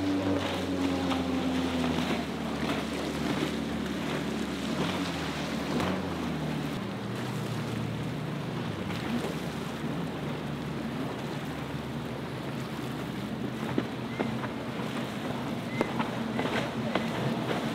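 Motorboat engines running through choppy water, with waves splashing and wind buffeting the microphone. In the first couple of seconds the engine note of a passing boat falls in pitch as it goes by, then a steadier low engine hum sits under the water noise.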